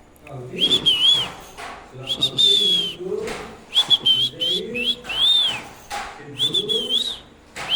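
Parrot whistling a short wavering phrase over and over, about six times, with lower mumbling sounds in between.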